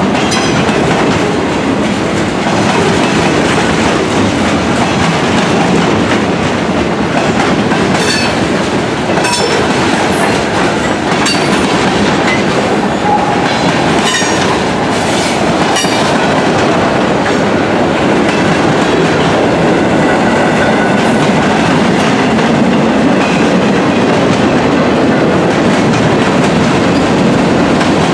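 Mixed freight train cars rolling past: steel wheels on the rails running with a steady rumble and clickety-clack, with brief high squeaks and clicks from the wheels around the middle.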